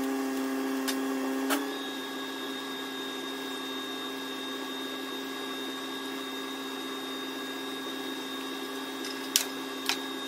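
A steady machine hum of several held tones that drops a little in level about a second and a half in, after a click, with a few sharp clicks near the end.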